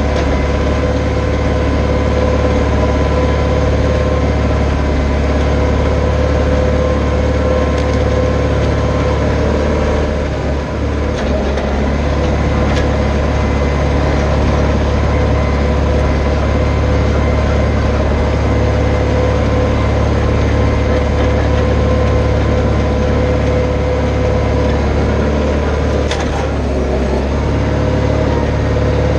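Branson 4520 compact tractor's diesel engine running steadily while it pulls a box blade through dirt. The engine note dips briefly twice, about ten seconds in and again near the end.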